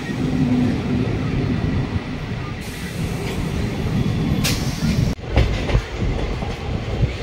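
Indian Railways passenger train heard from an open coach window: the steady rumble of a coach sliding past close alongside, with a short hiss near the middle. In the last couple of seconds, wheels clatter over rail joints as the train runs along.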